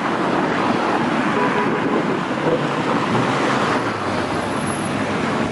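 Steady road traffic noise: cars running on a street, with no clear revving or crackle standing out.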